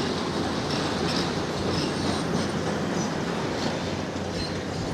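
Steady rumbling noise of a demolition excavator working at a distance, with faint light crunching and scraping over it.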